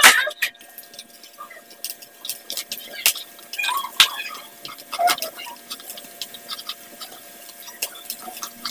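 Kitchen knife slicing raw beef on a plastic cutting board, with a few sharp taps of the blade hitting the board. A faint steady hum runs underneath.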